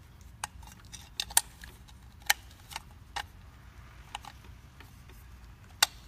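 Sharp, irregular clicks and taps of a replacement switch and its taped wire leads being handled and pushed into the handle housing of a B2 edger floor sander, the loudest near the end.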